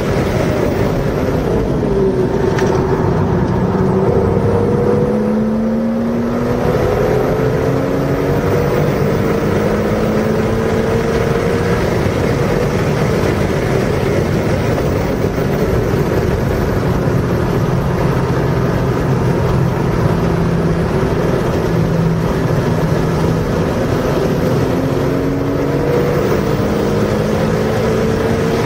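Car engine under hard acceleration, its pitch climbing through each gear and dropping back at the shifts, several times over, with heavy wind and road noise.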